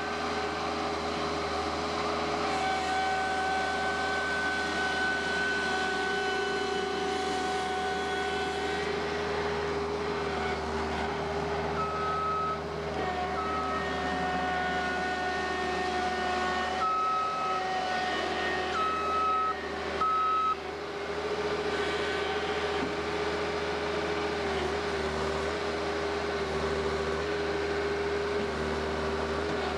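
Bobcat skid-steer loader's engine running steadily as it works dirt. A backup alarm beeps in a few short runs in the middle.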